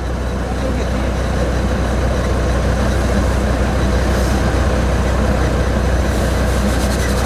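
Land Rover Defender 90 Td5's five-cylinder turbodiesel engine running steadily, with no revving, under a constant rushing noise.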